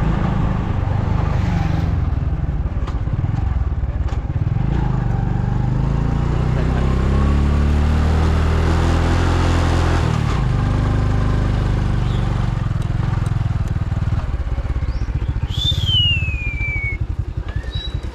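Motorbike engine running while riding, its pitch climbing for a few seconds and then dropping back about halfway through, with road noise throughout. A short falling squeal comes near the end.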